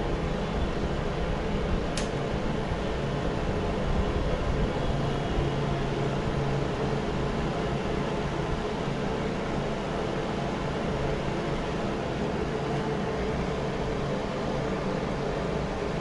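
Mondial A-08 electric fan heater running, its fan blowing with a steady whir and a low hum. A single sharp click comes about two seconds in.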